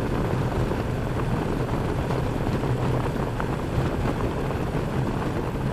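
Motorcycle engine running at a steady cruise, with a constant low hum under wind and road noise.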